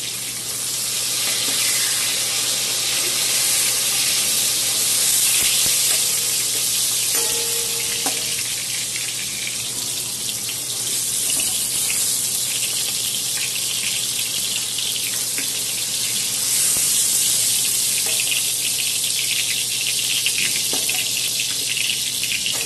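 Hot oil sizzling in a kadhai as fried tomato halves are lifted out with a ladle: a steady hiss, with a few faint clicks of the ladle.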